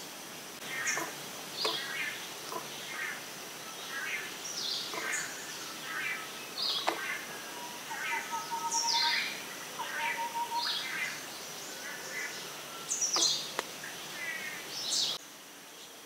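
Several forest birds calling: many short chirps, quick downward whistles and trills, with a few sharp snaps, over a steady high insect drone. The calls thin out and the sound gets quieter near the end.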